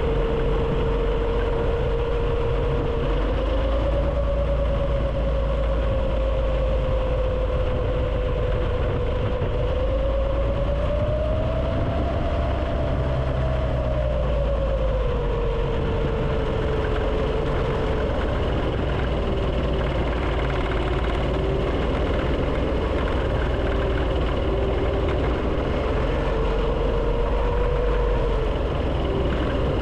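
Go-kart's roughly 50-year-old small engine running under way, its pitch rising and falling with the throttle: a rise about three seconds in, a higher swell near the middle, then settling lower. A steady low rumble runs beneath it, heard through an action camera's microphone.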